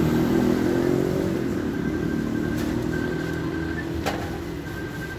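A motor vehicle's engine running, a steady low hum that slowly fades, with one sharp click about four seconds in.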